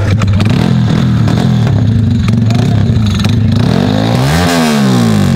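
A car engine running steadily, with an engine revving up and dropping back again about four seconds in.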